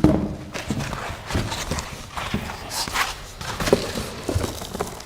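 Unboxing of a 3D printer: parts and packaging being handled and set down, giving irregular knocks, thuds and brief rustles of cardboard and foam.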